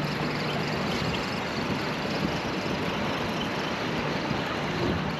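Steady wind on the microphone, an even rushing hiss with low fluttering buffets.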